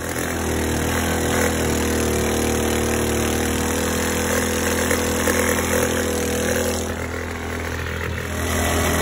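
Predator 212 single-cylinder four-stroke engine on a longtail mud motor, stage 1 upgraded with an aftermarket exhaust, air intake and rejet, running hard under load driving a 6.5-inch standard prop while the boat moves along. The note is steady and dips slightly about seven seconds in before coming back up.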